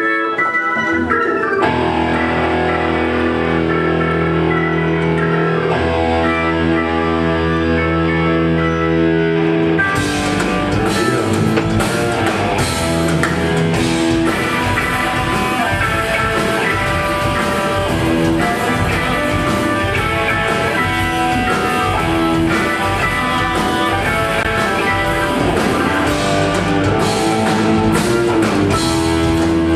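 Live blues-rock band playing: held chords over a sustained bass note for the first ten seconds, then the drum kit comes in and the full band plays on with electric guitar.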